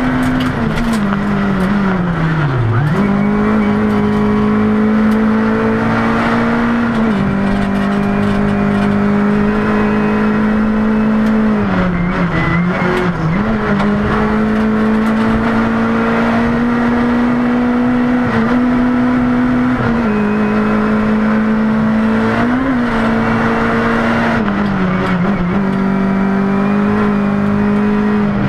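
Rally car engine at full throttle heard from inside the cabin, held at a steady high pitch that dips briefly about eight times as the driver lifts off and shifts gear, over constant gravel and road noise.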